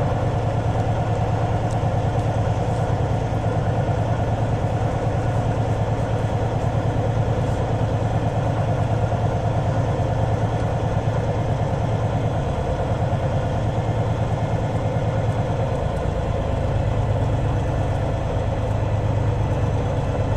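Semi truck's diesel engine idling steadily at low revs, an even low hum with a fast regular firing pulse.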